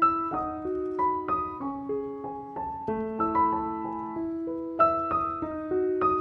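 Background piano music: a gentle melody of single struck notes over held lower notes.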